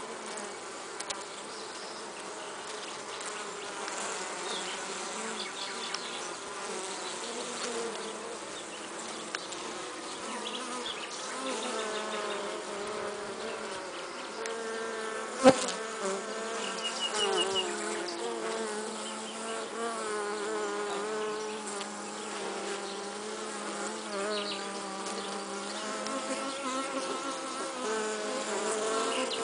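Many honey bees buzzing together on the comb: a steady hum of several overlapping pitches that waver up and down, with one sharp click about halfway through.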